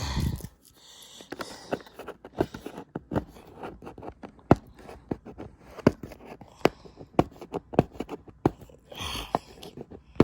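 A boxed toy's packaging being worked by hand to free the item, with the tape on the box stubborn to get off: irregular sharp clicks and taps, with brief scraping near the start and about nine seconds in.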